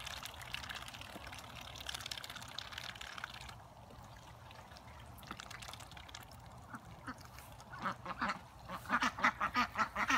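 Ducks quacking in a rapid series of short calls, loudest and most frequent in the last two seconds. For the first few seconds a steady hiss of water running from a garden hose lies underneath, then stops.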